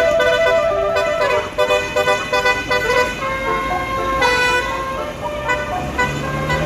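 A tour bus's basuri telolet horn, a set of electric air horns, playing a tune as a quick run of short, shifting notes.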